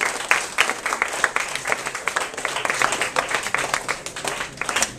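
Audience clapping in applause, thinning out toward the end.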